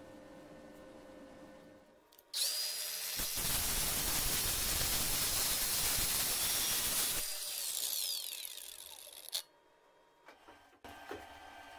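Angle grinder with a thin cut-off disc cutting through the steel shank of a drill chuck key clamped in a vise. It starts abruptly about two seconds in and grinds loudly for about five seconds. Then the cutting stops and the disc runs on with a falling whine before cutting off, followed by a few small knocks.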